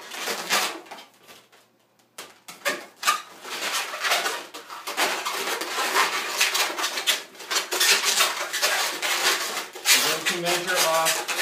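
Latex twisting balloons being twisted and wrapped around each other by hand: a stream of rubbing squeaks and squeals of latex on latex, with a short lull about a second and a half in.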